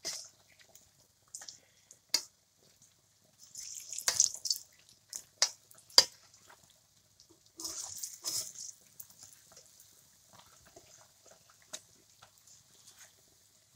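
Urad and moong dal fritters deep-frying in oil in a kadai: the oil crackles and spits, swelling in two spells around four and eight seconds in. A metal slotted spoon turning and pressing the fritters knocks against the pan several times, with the sharpest click about six seconds in.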